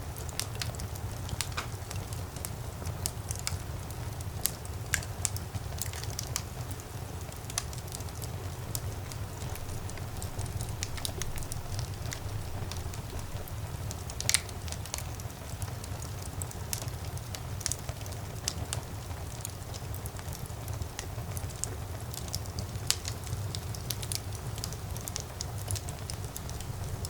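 Wood fire crackling in a fireplace: a steady low rumble of flames with frequent small, irregular pops and snaps, and one louder pop about halfway through.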